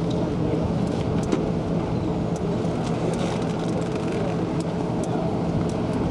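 Steady engine drone with a constant low hum and a few faint clicks over it.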